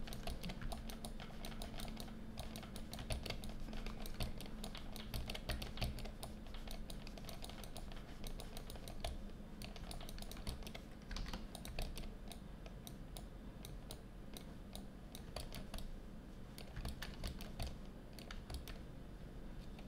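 Quiet, irregular clicking and tapping of a computer keyboard in quick runs of keystrokes, thinning out in the second half, over a faint low hum.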